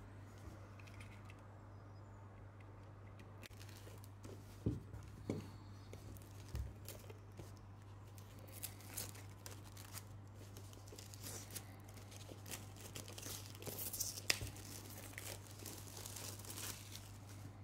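Plastic shrink wrap on a Blu-ray case being torn open and peeled off, crinkling and crackling. There are a few light knocks early on, and the crinkling grows busier from about halfway, loudest about three quarters through.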